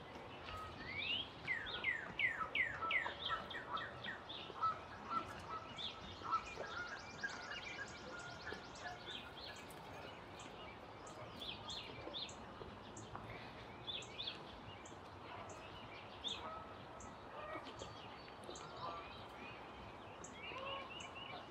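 Wild songbirds calling and singing. One bird repeats a series of loud downward-slurred whistles about a second in, followed by scattered chirps, a fast high trill, and a regular high tick repeating through the second half.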